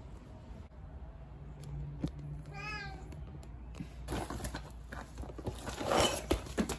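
A long-haired cat meows once, a short wavering call about two and a half seconds in. From about four seconds on there is rustling and handling noise.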